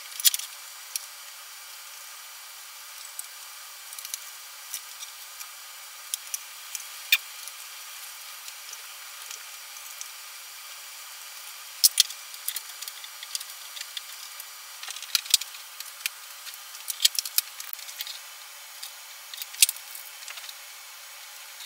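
Scattered clicks and taps of small parts and a plastic enclosure being handled on a workbench, over a steady hiss.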